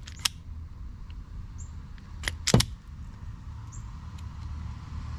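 A self-adjusting wire stripper clamping and stripping the insulation off a thin speaker wire: a light click, then a sharp snap of the tool's jaws about two and a half seconds in, with a small click near the start. A steady low hum runs underneath.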